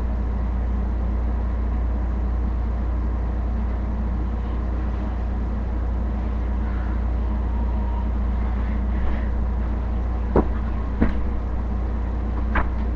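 A steady low hum, with three short clicks about ten and a half, eleven and twelve and a half seconds in.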